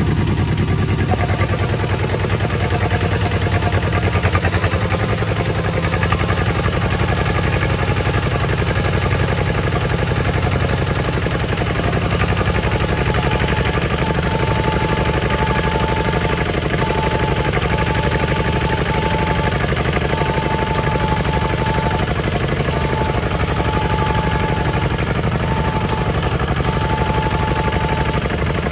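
Single-cylinder diesel engine of a two-wheel walking tractor running steadily while it pulls a trailer along, a fast, even chugging.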